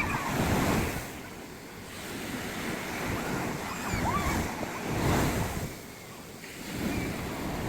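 Sea surf breaking on a beach, the waves surging loudest near the start and again around five seconds in, with wind buffeting the microphone.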